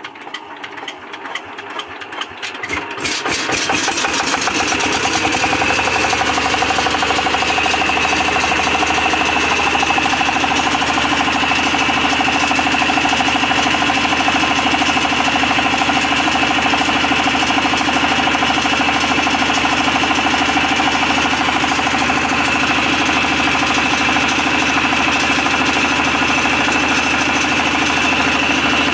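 Engine of a large farm water pump starting on battery power: it turns over with strokes that speed up over about four seconds, then runs steadily at a constant speed.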